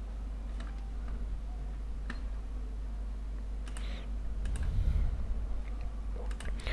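Computer mouse clicking while files are picked in a dialog: a handful of faint, sharp clicks, scattered and some in quick pairs, with a few more near the end, over a steady low hum.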